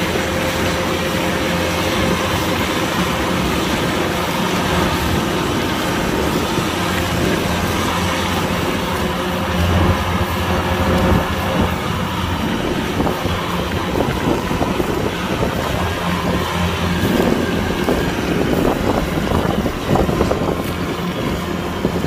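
Kubota DC-105X combine harvester's diesel engine and machinery running steadily as it drives on its rubber tracks, a continuous drone with a rougher, rattling texture in the second half.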